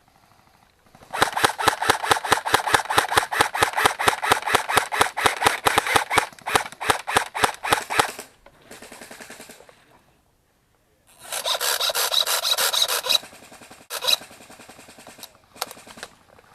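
Airsoft gun firing on full auto: a long rapid burst of about seven seconds, then after a pause a shorter burst of about two seconds, followed by a few single shots.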